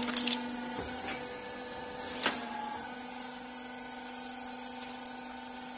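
Motor stator dismantling machine humming steadily while running, with metal clatter as the stator core is lifted off the copper windings near the start and a single sharp knock a little over two seconds in.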